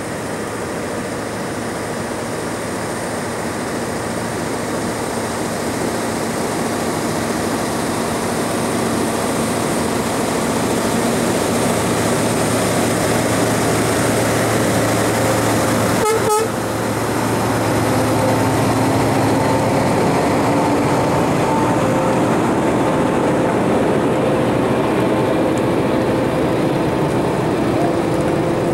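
Scania 520 V8 heavy-haulage tractor unit pulling a heavily laden multi-axle low-loader, approaching and passing at road speed: steady engine and tyre noise that grows louder as it nears, with a brief horn toot about sixteen seconds in as it draws level. The escort vehicles' engines follow close behind.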